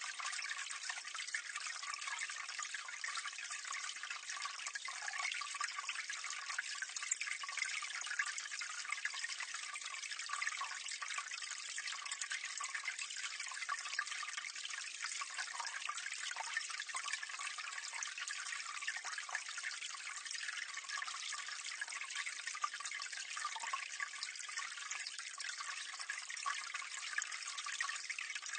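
Water running and splashing steadily into a drain gully, heard close up: a constant bright trickling and splashing with no deep rush.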